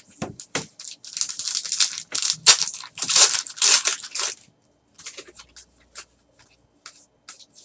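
A trading card pack's wrapper being torn open and crinkled, a dense rustling for about three seconds, followed by light clicks and flicks of the cards being handled.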